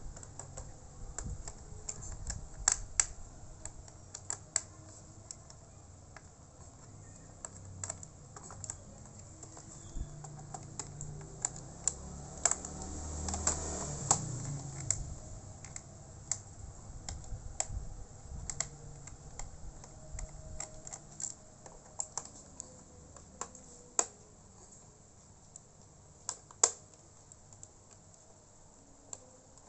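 Irregular light clicks and taps of a laptop's plastic case and small screws as the laptop is taken apart by hand with a small Phillips screwdriver. There is a longer scraping rustle about halfway through.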